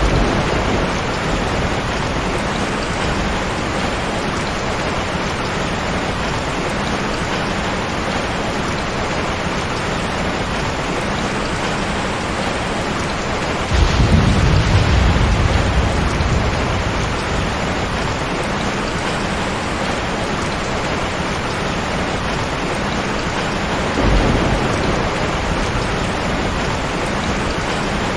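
Heavy rain falling steadily, with rumbles of thunder: a short one at the start, a louder one about halfway through that fades over a few seconds, and a smaller one near the end.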